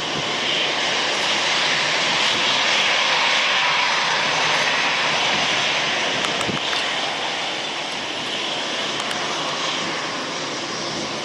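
Jet airliner engines running, a broad noise that swells over the first few seconds and then slowly eases off.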